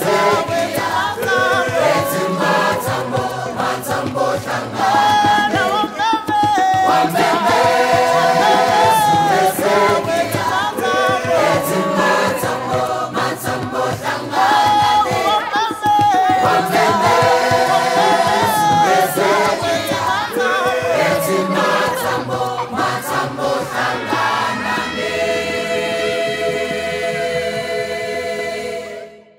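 Choir singing in harmony, closing on a long held chord that fades out at the end.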